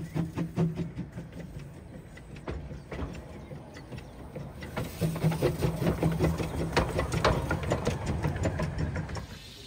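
Narrow-gauge steam locomotive working past at low speed, a quick regular beat of exhaust and running gear over a low steady hum. It gets louder from about five seconds in as the engine draws level, and falls away near the end.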